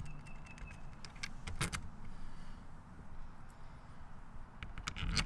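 Scattered light clicks and metallic clinks of small stainless-steel bolts, washers and nuts being handled and fitted into a shore power inlet's mounting holes, a cluster of them about a second and a half in and more near the end, over a low background rumble.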